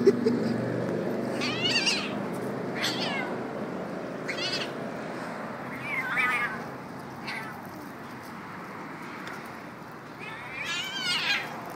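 Kitten meowing in short, high-pitched cries, about five of them spaced a second or more apart, the last near the end, while being mouthed and pinned by a puppy in rough play.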